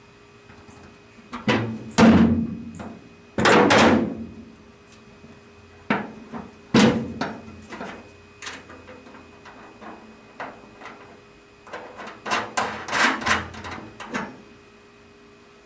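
Metal grab bar and its fastening hardware clunking, knocking and scraping against the aluminum floor of a jon boat as it is handled and set in place, in three bursts of knocks with quiet between.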